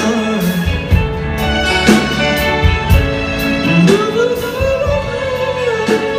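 Live band playing a Cantopop ballad, with drum hits and a male singer's wordless sung note that rises about four seconds in, is held, and falls away near the end.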